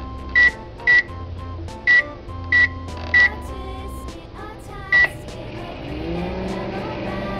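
Toy microwave's electronic button beeps: six short, loud, high-pitched beeps in the first five seconds. Near the end a humming tone rises in pitch and settles, as the toy microwave starts running.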